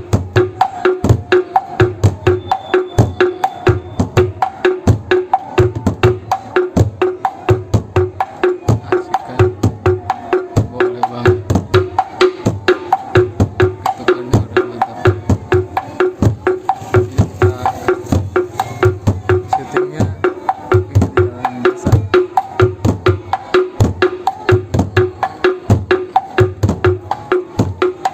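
Bedug, the large Indonesian mosque drum, beaten in a fast, steady takbiran rhythm. Each stroke gives a low boom with a sharp, ringing wooden knock, about two to three strokes a second without a break.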